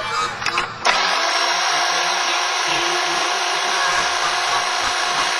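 Electric hedge trimmer starting abruptly about a second in and running steadily, a dense motor buzz.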